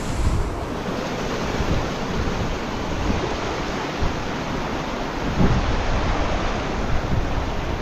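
Wind buffeting the camera microphone, a rushing noise with an uneven, gusty low rumble.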